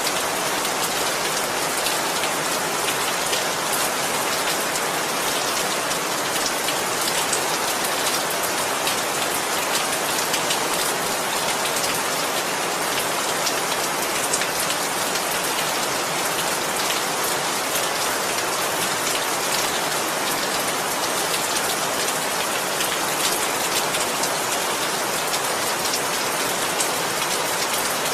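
Steady rain falling on a surface, a constant hiss with many fine drop ticks.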